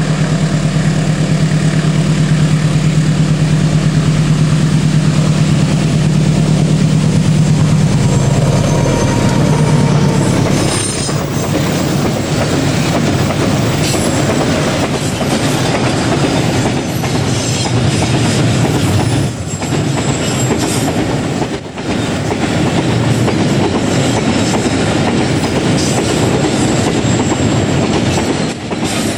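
Diesel locomotive passing close with its engine running loudly. After about ten seconds it gives way to a long train of rail fuel tank wagons rolling by, wheels clicking rhythmically over the rail joints.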